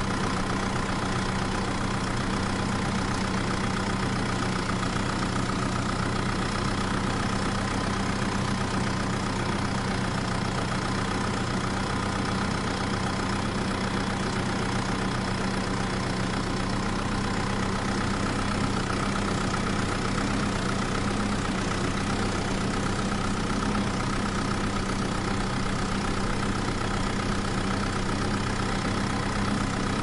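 Remote-control toy tractor's motor running steadily, its rear wheels spinning and digging into sand.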